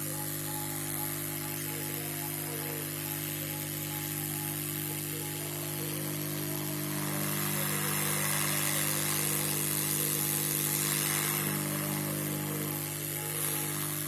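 Hot air rework station blowing steadily over a low hum, its rush of air swelling a little in the middle.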